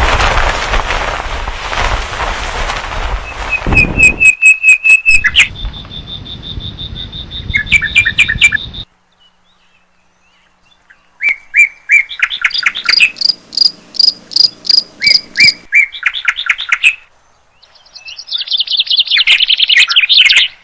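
Songbirds chirping in quick repeated trains of high calls, in several separately cut clips. The first few seconds sit over a loud rushing noise, and about halfway through there is a couple of seconds of silence between clips.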